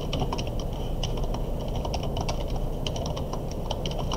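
Typing on a computer keyboard: a quick, uneven run of key clicks, several a second, as text is entered through a Chinese input method.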